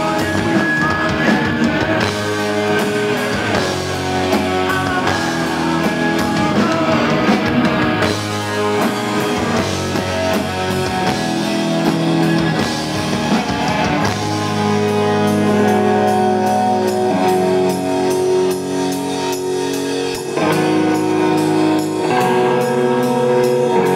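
Live rock band playing a song: electric guitars and drum kit, with long held chords in the second half.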